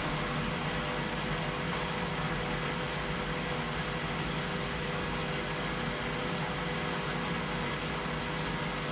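Washing machine running mid-program: a steady mechanical hum and whir with a few constant motor tones, even in level throughout.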